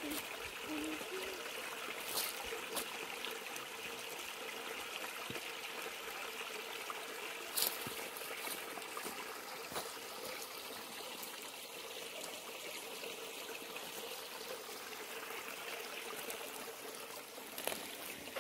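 Shallow creek trickling over rocks, a steady watery hiss, with a few short sharp clicks over it, the loudest about halfway through.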